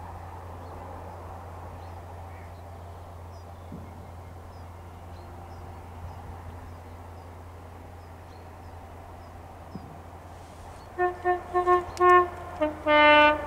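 Class 43 HST power car's two-tone horn sounding as the train nears the crossing: a quick run of short, higher blasts, then a longer, lower blast, loud against a steady low hum and faint birdsong.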